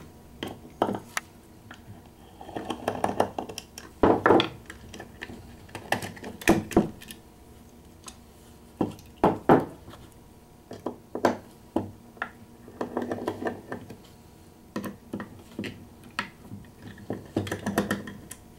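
Small metal parts being handled while the grip panels are unscrewed from a Ruger Mark III pistol frame with an Allen key: irregular light clicks and taps of metal on metal and on the grip panels, with short rustling handling noise between them.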